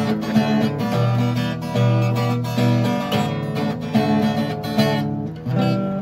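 Acoustic guitar played steadily, strumming chords with many quick strokes.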